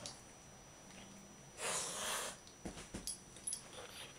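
English Bull Terrier puppy giving one short noisy snort about one and a half seconds in, followed by a few faint clicks.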